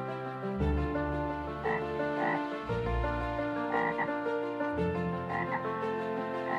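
Frog calls: about five short croaks spaced a second or more apart, over steady background music.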